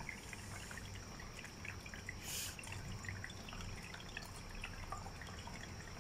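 Electric pet water fountain trickling and dripping steadily, with scattered small crunches from a cat chewing dry kibble out of a stainless steel bowl.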